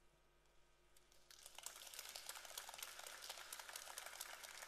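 Audience applauding, fairly faint, starting about a second in after a near-quiet moment: many hands clapping at once.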